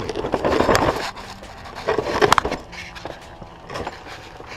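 Metal rattling, scraping and a few sharp knocks as the Dodge Charger's driveshaft is worked by hand, its center bearing loose where it has broken away from its housing.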